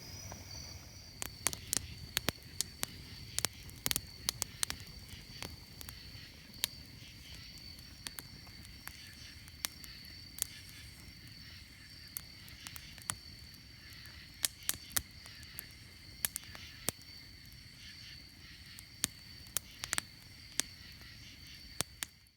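Small wood fire crackling with irregular sharp pops inside a Vargo wood-burning backpacking stove, over a steady high-pitched drone of night insects.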